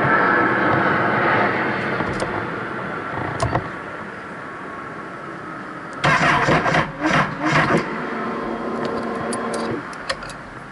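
A 2012 Honda CBR1000RR Fireblade inline-four being cranked over on its electric starter: a loud stuttering burst about six seconds in, then a steady hum that cuts off near the end. The owner says the bike's battery is dead and it won't start.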